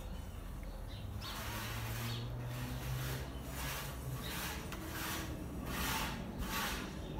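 A motorcycle wheel being turned by hand, giving a rhythmic rasping swish about twice a second over a low steady hum.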